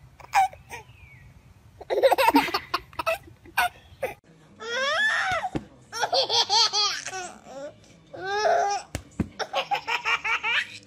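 A baby laughing heartily in repeated bursts of belly laughter, ending in a quick run of chuckles.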